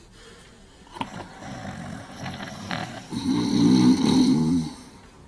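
Two men snoring: softer snoring for the first few seconds, then a long, loud snore from about three seconds in.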